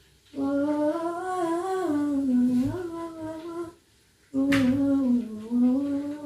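A woman humming a tune in long, smoothly gliding notes, in two phrases with a short pause about four seconds in. There is a brief click at the start of the second phrase.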